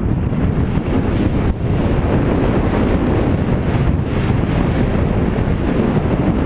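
Wind buffeting the microphone of a skier's camera while skiing fast downhill: a loud, steady rush heaviest in the low end, with no let-up.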